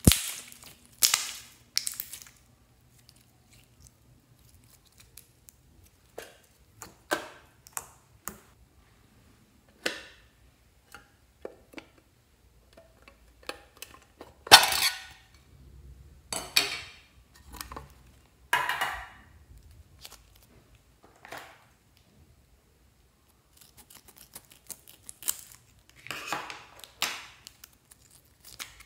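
Hands handling slime and plastic slime containers: a string of short, separate crackles, clicks and squelches with pauses between, a few of them louder.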